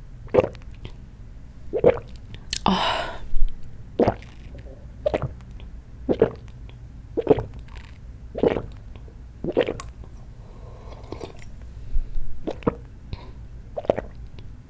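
Close-miked swallowing and mouth sounds of someone drinking makgeolli, with a gulp roughly once a second and a longer breathy sound about three seconds in.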